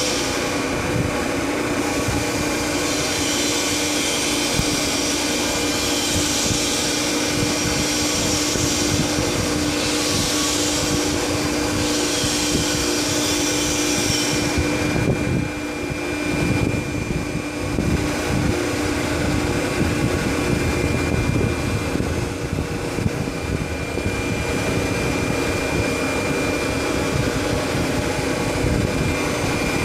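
Hydraulic power unit running steadily, with a constant hum, as the telescopic cylinder moves the raised dump body. A high hiss drops away about halfway through.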